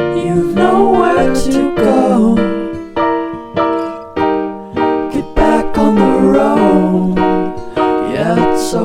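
Background music: a song with piano or electric keyboard chords struck in a steady rhythm and a singing voice over them.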